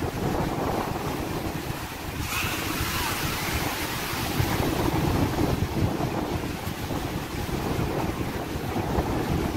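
Surf washing up the beach, with wind buffeting the microphone. A wave breaks and washes in a little after two seconds in.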